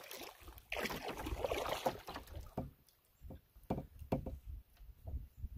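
Paddling a solo canoe: a swish of the paddle blade pulling through the water about a second in, then a series of light knocks and ticks, with a low rumble underneath.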